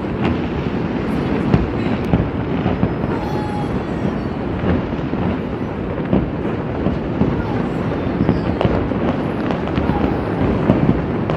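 Fireworks display: a continuous barrage of bursts and crackle, with many sharp bangs scattered through it.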